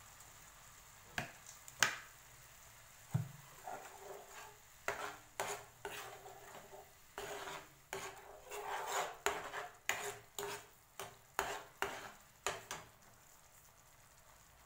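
Steel spoon stirring thick tomato sauce in a nonstick pan: irregular knocks and short scrapes of the spoon against the pan, stopping about two seconds before the end.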